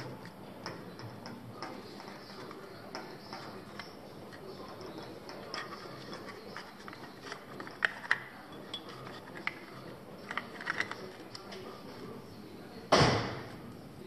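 Small hand tools and wires being handled on a workbench: scattered light clicks and clinks, a few sharper ticks in small clusters, and one louder sharp snap that fades over about half a second, a second before the end.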